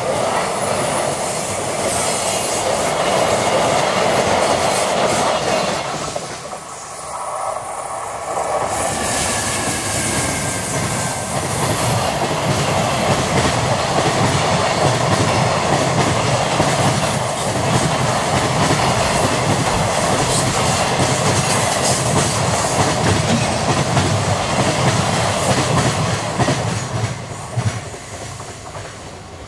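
Container wagons of a long freight train rolling past, their wheels running over the rail joints in a steady clickety-clack. The sound dies away near the end as the last wagons pass.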